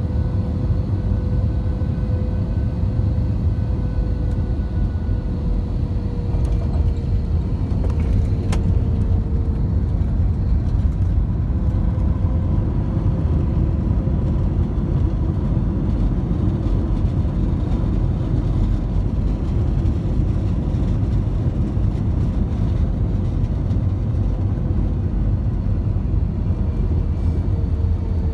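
Airbus A321 cabin noise over the wing during the landing roll and turn-off, spoilers raised: a steady loud rumble from the engines and the wheels on the concrete, with faint steady engine tones above it.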